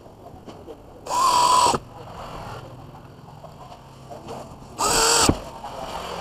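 Electric drill driving screws into a plastic camera mount base: two short runs of the motor whine, the first a little over a second in and the second near the end, where the pitch falls as the drill stops.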